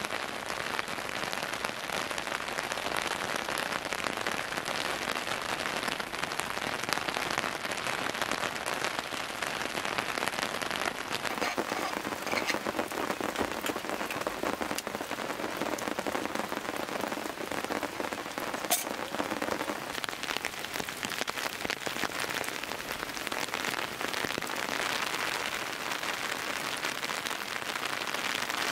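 Steady rain falling, a dense patter of drops throughout. About two-thirds of the way through there is a single sharp click.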